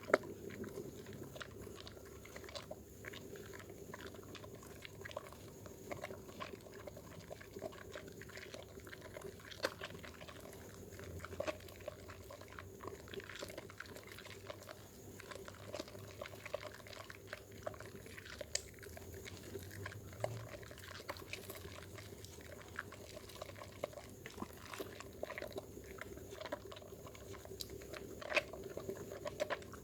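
Dermythol soap bar being lathered with water, a steady run of wet squishing and fine crackling foam sounds with small irregular clicks.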